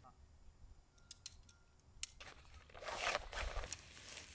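Tent fabric rustling as it is handled and pulled, after a few light clicks.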